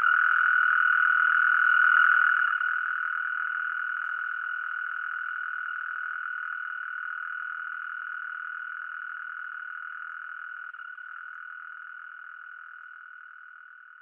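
Oriental mole cricket singing a continuous, even trill at one steady pitch, fading out gradually from about two seconds in.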